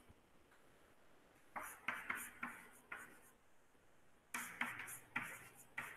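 Chalk writing on a chalkboard: two runs of short scratching and tapping strokes, one about a second and a half in and another a little past four seconds in.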